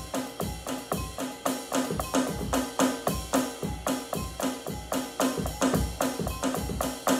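Electronic drum kit played in a fast, steady groove of bass drum and snare hits, about four strokes a second.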